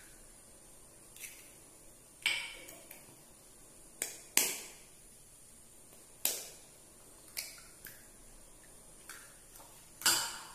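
Steel spoon rapping hen's eggshells to crack them open: a series of sharp taps, about one a second.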